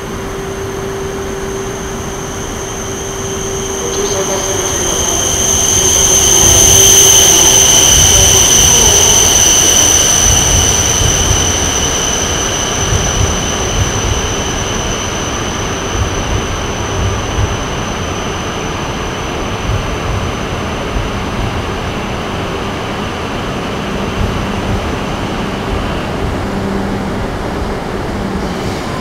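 E5 series Shinkansen train moving slowly along the platform. It makes a steady rumble with a high, steady squeal that swells to its loudest about seven seconds in and fades away near the end.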